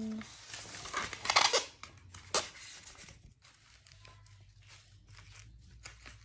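Paper wig rustling and crinkling as it is pulled off a foam mannequin head and fitted onto a head, with the loudest rustles about a second in and a sharp crackle a moment later, then softer rustles.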